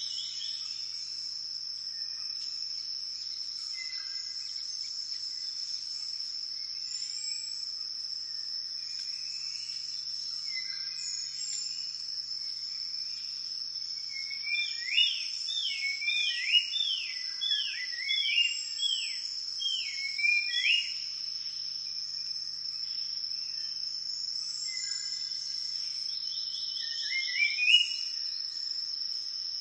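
Forest ambience: a steady high insect drone with scattered bird calls. About halfway through, a bird gives a run of about ten quick, loud whistled notes, and another short burst of calls comes near the end.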